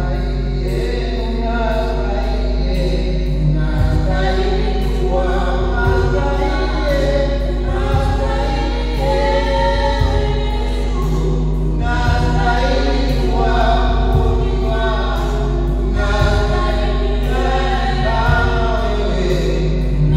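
Choir singing a gospel hymn with instrumental backing, over a steady low electrical hum.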